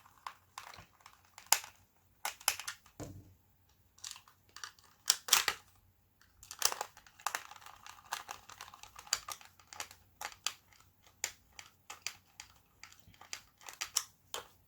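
Plastic housing of a small animatronic toy being handled and screwed back together by hand: a run of irregular sharp clicks, taps and short scrapes of plastic and screwdriver.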